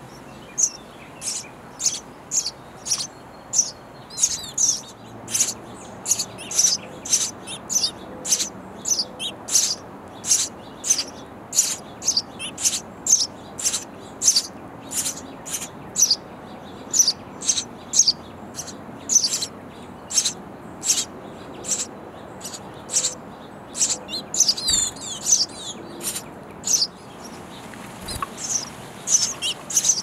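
House sparrow nestlings begging from inside a nest box: a steady run of short, high chirps, about two a second, growing into a denser flurry of overlapping calls near the end.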